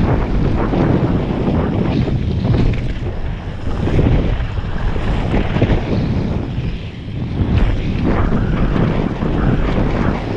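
Wind buffeting a helmet-mounted camera's microphone as a mountain bike rides fast downhill over a gravel trail, with tyres crunching on loose stones and the bike rattling over bumps.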